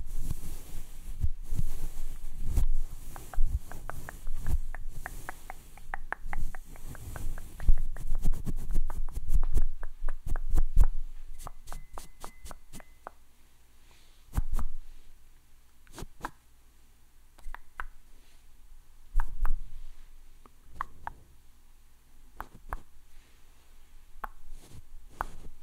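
Close-up crackling, clicking and soft thumps of something rubbing and knocking against a sensitive microphone. It is dense at first and thins to scattered clicks and knocks about ten seconds in.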